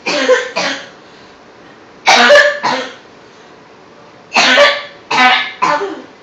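Effortful, forced coughing in three bouts: a double cough at the start, another double cough about two seconds in, and a longer run of coughs from about four and a half seconds in.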